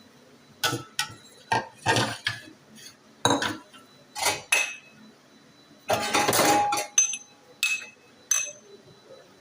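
A series of separate clinks and knocks of hard objects, about a dozen, some leaving a short ring, with a longer clatter about six seconds in.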